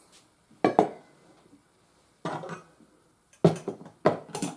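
Stainless steel bowls knocking against each other and against the counter as beans are tipped in and the empty bowl is set down: about five separate metallic clanks with brief ringing.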